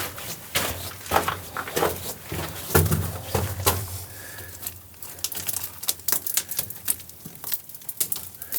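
Irregular clicks, crunches and scrapes of loose rock and gravel being stepped on or handled, with a short low hum about three seconds in.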